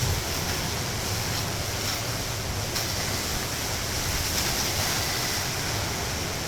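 Hurricane wind and driving rain making a steady rushing noise.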